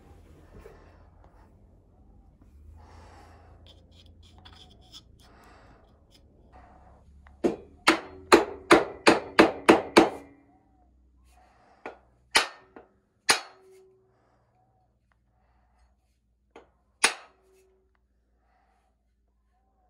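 Hammer blows driving a glued wooden wedge into the handle to fix an axe head: after some quiet handling, a quick run of about eight strikes, about three a second, then a few single blows, some with a short ring.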